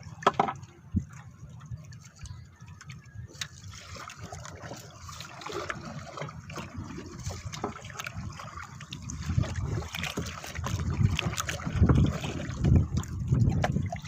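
Water sloshing and trickling around a small fishing boat, with scattered small knocks and clicks; the low sloshing grows louder in the second half.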